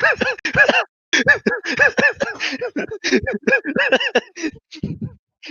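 A person's voice making short pitched syllables without clear words, in rapid succession, stopping shortly before the end.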